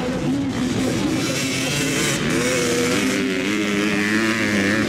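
Motocross bike engines revving as riders race over a jump, their pitch rising and falling, then holding steadier near the end.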